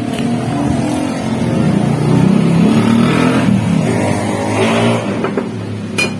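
A motor vehicle's engine revving, its pitch rising and falling and loudest about two to three seconds in, with a sharp click near the end.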